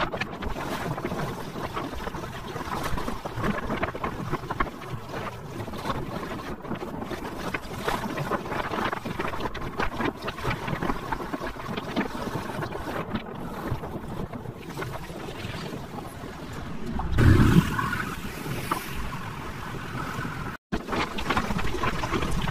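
Wind buffeting a phone microphone on a moving two-wheeler, mixed with the running engine and road noise, with a louder low rumble about seventeen seconds in.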